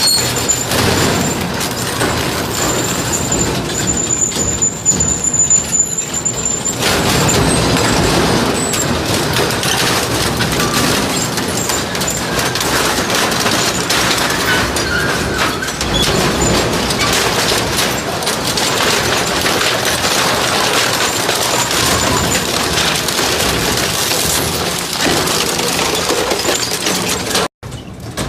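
Industrial scrap-metal shredder crushing and tearing metal: a continuous loud grinding racket full of clanks and crashes, with a thin high whine over it for the first several seconds.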